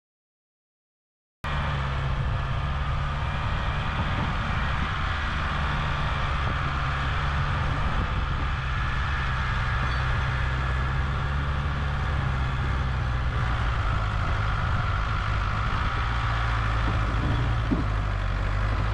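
After about a second and a half of silence, a tractor's diesel engine runs steadily under load while pulling a rotary tiller through a flooded rice paddy.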